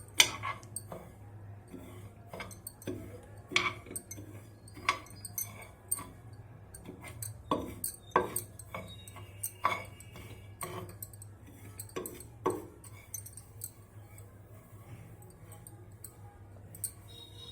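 A spoon stirring broken wheat (dalia) on a plate, with irregular clinks and scrapes against the plate that thin out and stop about two-thirds of the way through.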